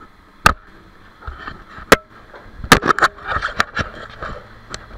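Arc welding inside a steel fuel tank: a crackling hiss broken by several sharp metallic knocks and pops, the loudest about half a second and two seconds in, with a cluster near three seconds.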